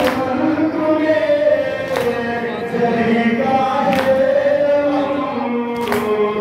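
A man chanting a noha, a Shia mourning lament, through a microphone in a slow melody of long-held, sliding notes. A sharp beat falls about every two seconds, in time with the mourners' matam, the beating of the chest.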